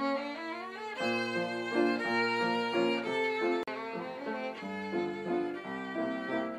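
Background music led by a violin, playing a melody of held notes with a lower accompaniment coming in about a second in.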